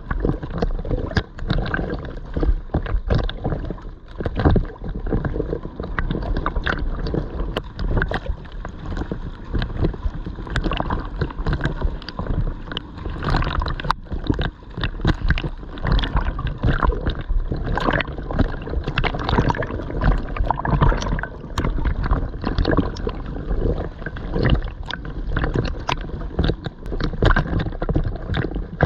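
Ocean water splashing and sloshing from a swimmer's strokes during an open-water swim, a continuous wash broken by many irregular splashes.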